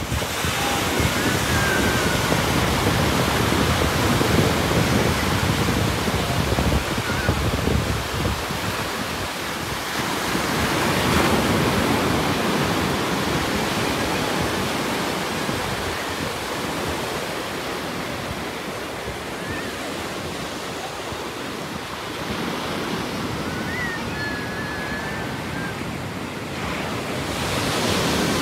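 Ocean surf breaking and washing up a sandy shore in a steady rush, swelling and easing as waves come in. For the first several seconds wind buffets the microphone with a low rumble.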